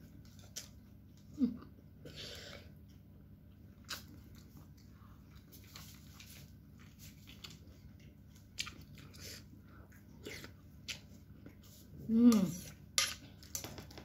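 Eating noodle soup: a metal spoon clicking and scraping against a ceramic bowl, with chewing and a slurp. A short vocal murmur about 12 seconds in is the loudest moment.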